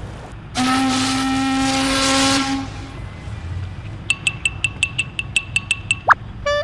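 A ship's horn sound effect sounds one long blast of about two seconds. It is followed by a run of short, high pips, about four a second, and a brief rising whistle near the end.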